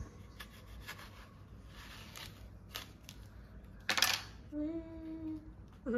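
Kitchen knife cutting through a red dragon fruit on a stainless-steel counter: faint scrapes and clicks of the blade through the skin, then a short, louder scrape about four seconds in as the fruit is split.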